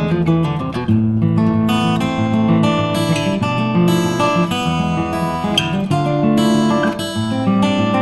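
Background music: strummed acoustic guitar chords at a steady pace.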